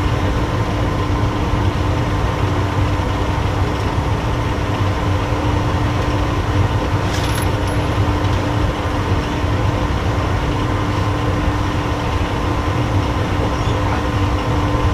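Steady hum and low rumble of foundry machinery running, holding a constant tone throughout, with a short light clink about seven seconds in.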